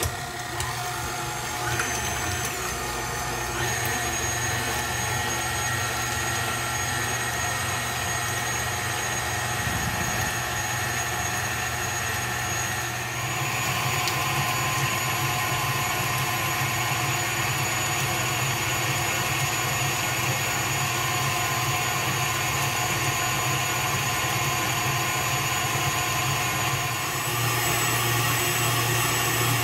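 KitchenAid tilt-head stand mixer running with its wire whip, beating heavy cream and mascarpone in the steel bowl: a steady motor whine with the whisk churning. It gets louder in two steps, about a third of the way in and again near the end.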